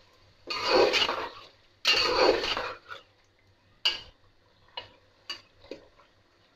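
Metal spatula scraping and stirring frying beef and tomato in a metal pot: two long scrapes, then several short clinks of the spatula against the pot.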